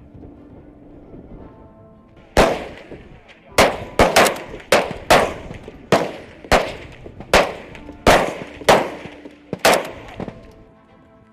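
Several Kalashnikov-pattern rifles firing single shots: about a dozen sharp, unevenly spaced reports starting about two seconds in and ending near the end, each with a short echo. Faint background music plays before and after the shots.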